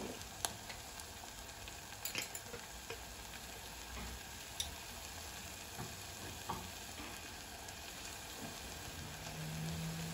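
Rinsed rice in a pot sizzling faintly on a gas burner as its leftover rinse water cooks off, with a few light clicks.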